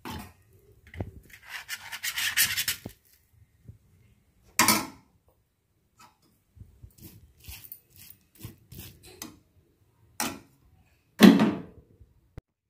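A spoon scraping and knocking on a pan and a steel plate as upma is served out. First a run of scrapes, then scattered knocks and light taps, the loudest a single knock near the end.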